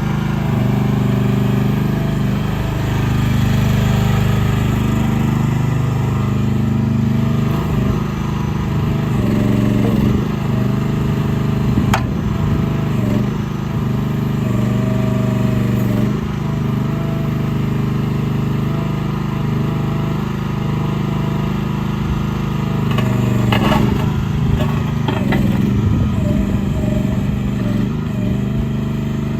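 Mini excavator's Briggs & Stratton 420cc single-cylinder gas engine running steadily, its note dipping and recovering a few times as if under load, with a few sharp clicks or knocks.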